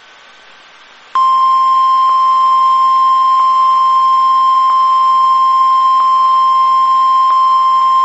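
NOAA Weather Radio warning alarm tone, the 1050 Hz attention signal of an emergency alert, played through a weather radio receiver: one loud, steady, high tone that comes on suddenly about a second in, after faint radio hiss. It signals that a warning broadcast, here a Special Marine Warning, is about to be read.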